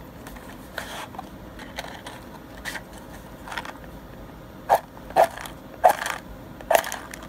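A match struck again and again against a matchbox striker, several short scrapes that grow louder, the last four loud ones coming about half a second apart in the second half, as repeated tries to get it to light.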